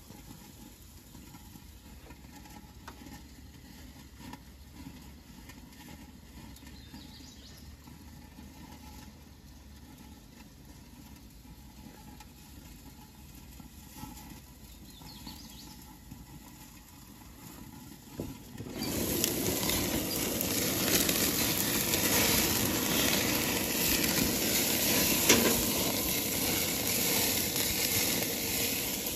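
Faint outdoor background at first. About two-thirds of the way in, rib eye steaks start sizzling loudly over flaring flames on a propane gas grill, with scattered pops and crackles.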